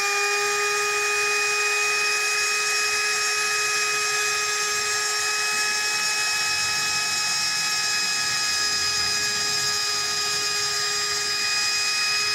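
Handheld electric trim router running at speed while cutting a groove along a laminated board; one steady high whine.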